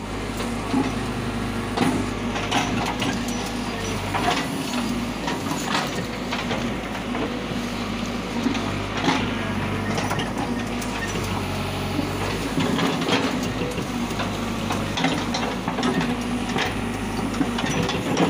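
Caterpillar backhoe loader's diesel engine running steadily under working load, heard from inside the cab. Frequent knocks and cracks come from the backhoe bucket tearing at soil and tree roots.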